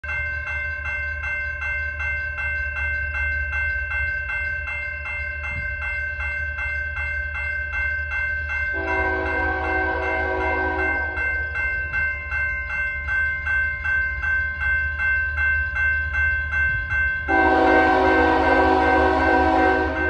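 A grade-crossing warning bell rings rapidly and steadily while the approaching lead Union Pacific GE freight locomotive sounds its horn for the crossing: one blast of several notes at once about nine seconds in lasting roughly two and a half seconds, then a louder, longer blast beginning near the end.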